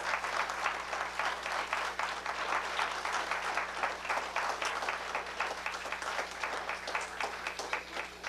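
Audience applauding steadily, the clapping stopping fairly abruptly right at the end.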